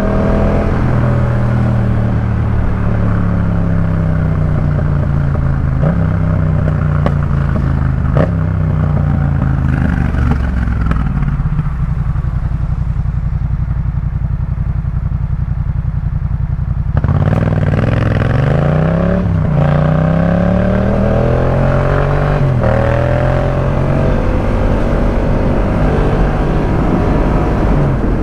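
Yamaha MT-07's parallel-twin engine through a Jeskap K4 full exhaust system. The engine note falls through the first half with a few sharp pops, holds a low, steady note for about five seconds, then gets louder about two-thirds in and rises again and again through gear changes.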